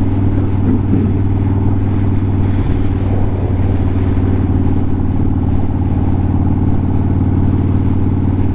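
Motorcycle engine running at a steady speed, a constant low drone with no revving.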